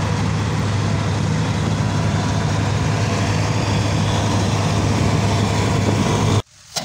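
New Holland combine harvester running steadily while cutting and threshing the crop, a loud low engine hum with machine noise over it; it cuts off suddenly about six seconds in, and a single sharp knock follows near the end.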